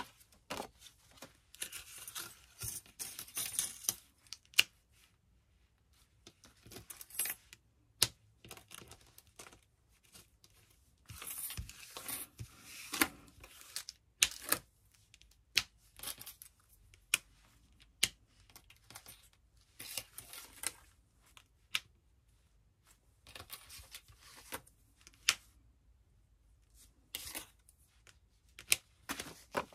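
Small thin metal cutting dies being handled and sorted by hand: irregular light clicks and clinks as they tap against each other and the table, with short rustles of handling in between.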